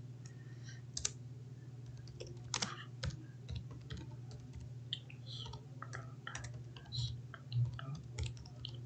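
Computer keyboard being typed on: irregular key clicks at an uneven pace, over a steady low hum.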